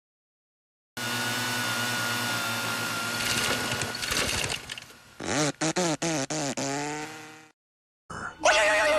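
A chainsaw starts and runs steadily, then goes into a run of quick rising-and-falling sweeps before cutting off suddenly about seven and a half seconds in. After a moment's silence, a new wavering high-pitched sound starts near the end.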